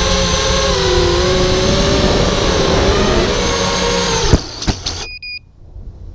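Brushless motors and propellers of an FPV racing quadcopter whining with several pitches that shift up and down with throttle, heard from the quad's own onboard camera. About four seconds in, it touches down with a couple of sharp knocks and the motors cut off, followed by two short high beeps.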